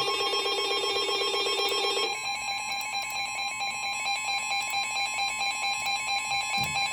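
Emergency Alert System attention signal: a steady two-tone alarm (853 and 960 Hz sounded together) that announces the flood warning. For the first two seconds a lower pulsing buzz plays over it, then stops, leaving the two-tone alarm alone.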